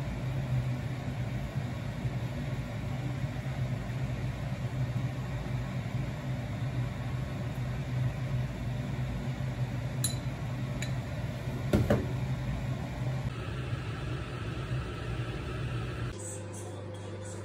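Steady low mechanical hum with a hiss over it, kitchen noise around a pot cooking on a gas stove, with a couple of light clicks of chopsticks against a bowl about ten and twelve seconds in as beaten egg is poured in. Near the end the hum changes to a lower, smoother one.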